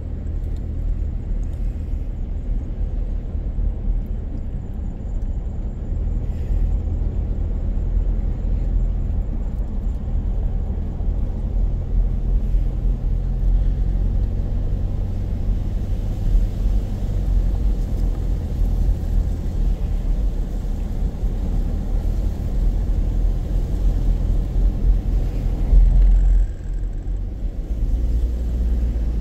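Car driving on a paved road, heard from inside the cabin: a steady low rumble of engine and tyre noise. It dips briefly near the end.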